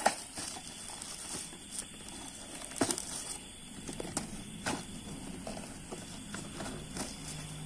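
Cardboard toy box and its plastic packaging being handled and opened, with scattered taps, knocks and rustles; the sharpest knocks come at the start and about three seconds in.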